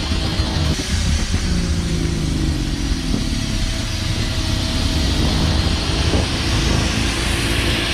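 An engine running steadily, with a low rumble and a pitch that dips slightly and recovers.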